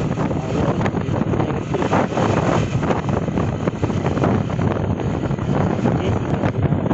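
Wind buffeting the microphone of a Honda CB Shine motorcycle moving at road speed, with engine and road noise underneath.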